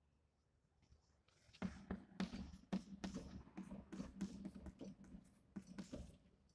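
Chalk tapping and scraping on a blackboard as numbers are written: a quick run of sharp taps and short strokes that starts about a second and a half in and stops near the end.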